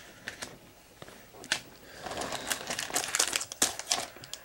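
Crinkling of a trading-card pack wrapper as cards are handled, mostly in the second half, with a few light clicks.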